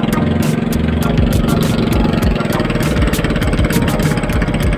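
Small engine of a narrow wooden boat running steadily under way, a rapid even beat with a low hum.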